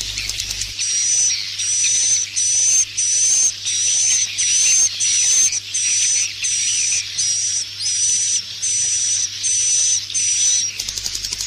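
Swiftlet roosting lure call: a steady series of about fourteen high, hissy chirps, roughly one every 0.7 s, each carrying a thin whistle. Under them runs a fast clicking twitter, which is heard alone at the start and again near the end.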